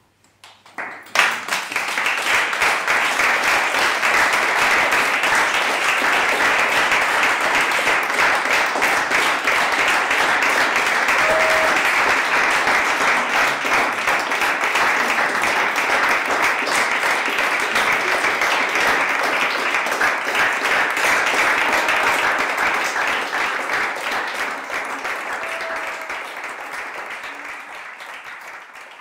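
Audience applauding. It breaks out suddenly about a second in, holds steady, then dies away near the end.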